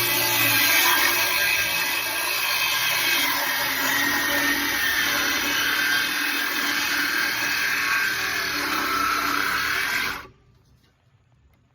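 Craftsman CMCS500 cordless circular saw cutting through wood, its motor whine wavering in pitch under load, then stopping abruptly about ten seconds in.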